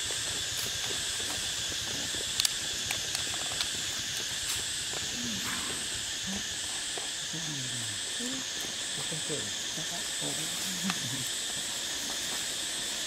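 Steady high-pitched insect chorus whose buzz wavers up and down about once a second, with a few sharp clicks. Faint low voices are heard in the middle.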